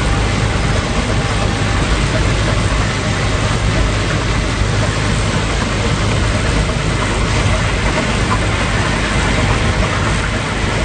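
Rice combine harvester at work: its engine and harvesting machinery make a loud, steady drone with a constant low hum, while the reel sweeps rice into the cutter bar.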